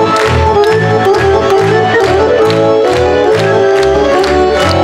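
Fiddle-led Serbian folk dance music from Šumadija, played for a kolo, with a steady beat of about two strokes a second over a pulsing bass line.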